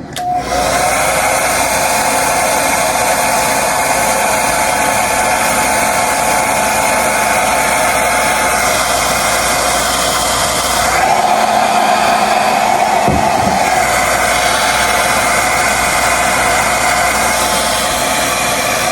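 Handheld hair dryer switched on and blowing steadily, a loud whir with a whine, its tone shifting about eleven seconds in.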